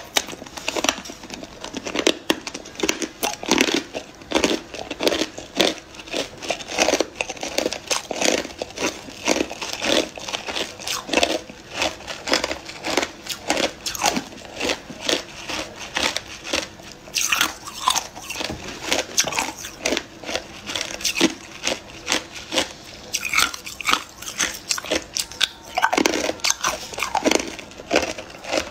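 A person biting and chewing hard, clear ice cubes: a steady run of sharp, crisp crunches, several a second.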